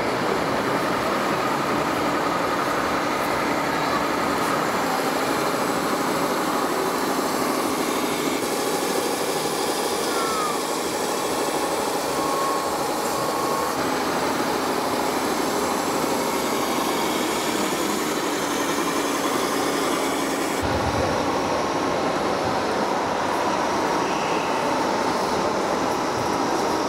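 Steady, even rumbling noise of a large exhibition hall with radio-controlled model trucks running. Its upper tone changes abruptly about three-quarters of the way through.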